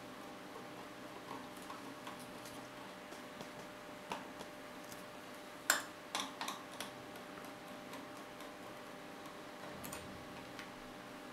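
A screwdriver backing out the small screws that hold the thermostat to an oil heater's plastic front panel: faint, scattered clicks and taps, the sharpest about six seconds in and a few more just after, over a steady low hum.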